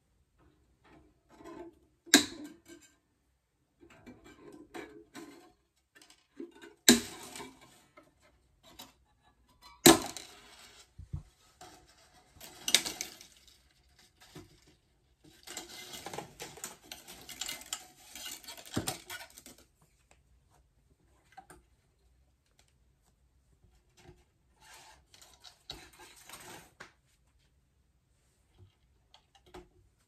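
Steel guitar strings of an Epiphone Casino being cut with wire cutters, three loud, sharp snaps in the first ten seconds among smaller clicks. Then the loose strings rattle and scrape for a few seconds as they are pulled out of the guitar.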